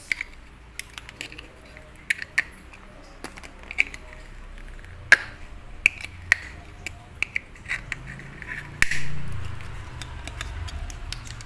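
Needle-nose pliers clicking against the circuit board of an LED bulb as small parts are pulled off it: a scattered string of sharp clicks, with a longer rustle about nine seconds in.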